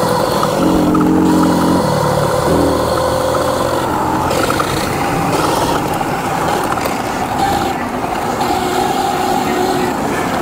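Dirt bike riding along a sandy trail: engine running, its pitch shifting in the first couple of seconds, under a steady rush of riding noise.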